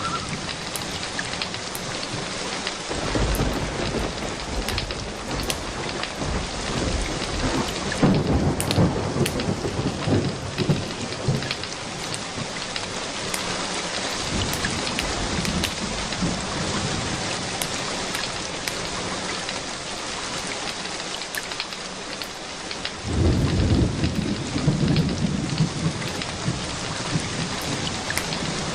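Steady rain with low thunder rolls swelling about three seconds in, around eight seconds in and again later on. Sharp crackles of a wood fire pop throughout.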